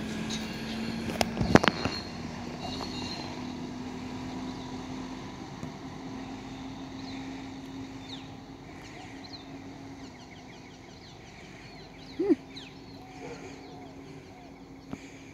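Skip bin loader truck's engine running as the truck drives off, its steady hum slowly fading, with a few sharp metallic clanks about a second and a half in. Birds chirp through the second half, and there is one more short, sharp sound near the end.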